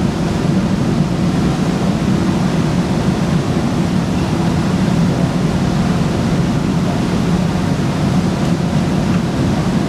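Steady low hum and rush of a metro train car's air-conditioning and ventilation while the train stands at an underground platform with its doors open.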